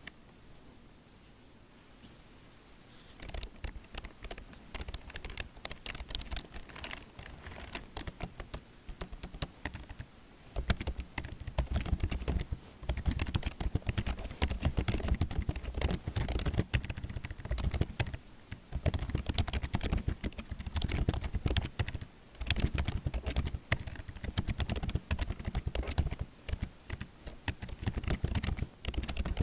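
Typing on a computer keyboard: a fast, dense run of key clicks that starts about three seconds in and becomes louder and heavier, with deeper key thuds, from about ten seconds in.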